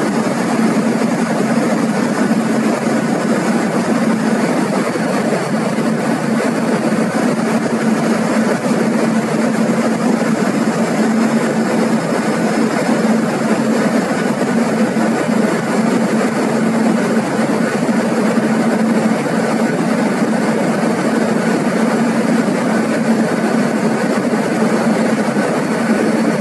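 Loud, steady engine drone with a constant low hum and a hiss over it, cutting off suddenly at the end.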